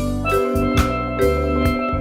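Steel drum (steelpan) playing a reggae melody over a backing track with bass and a drum kit; a cymbal or hi-hat hit falls about every half second.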